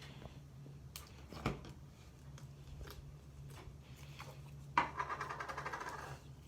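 Hands kneading and squishing slime: scattered sticky pops and clicks, then a sudden squelch followed by a fast, even crackling for about a second and a half near the end.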